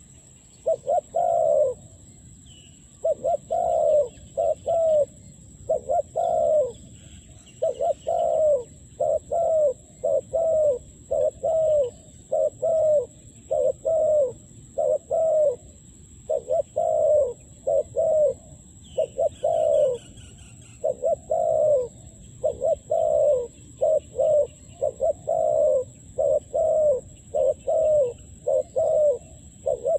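A dove cooing over and over: a steady string of short, low, falling coos, roughly one and a half a second. Faint chirps of other small birds sound higher up.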